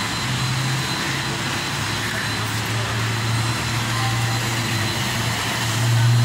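Commercial wet vacuum running with a steady motor hum and hiss while a floor tool is worked over wet stone steps.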